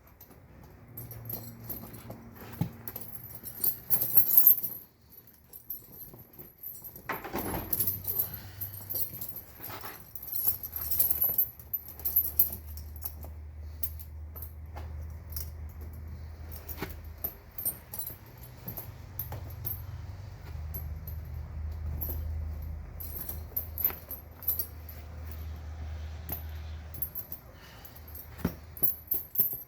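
Steel tire chain links clinking and rattling in irregular bursts as the chain is handled and fitted around an ATV's rear tire. A low steady hum runs underneath from about seven seconds in until near the end.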